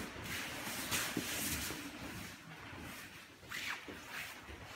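Karate uniforms rustling and snapping as students move through drilled techniques, with a few short, sharp swishes.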